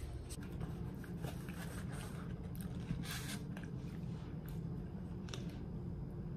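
Steady low room hum with scattered small clicks and rustles of handling, the loudest a brief rustle about three seconds in.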